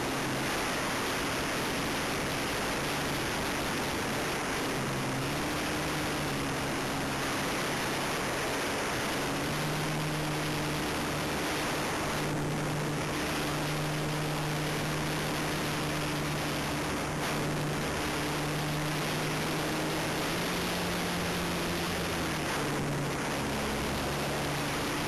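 A model Super Cub airplane's motor and propeller hum at a steady pitch that steps up and down several times with the throttle, under a constant hiss of wind over the onboard camera microphone.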